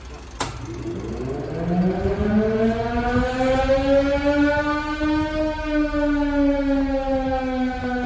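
Coded Model 5 electromechanical fire siren starting up for a test, with a click just before it: its tone winds up in pitch over about four seconds and then holds near full speed with a slight waver. It sounds a steady tone because its 1960s fire alarm controller cannot pulse it.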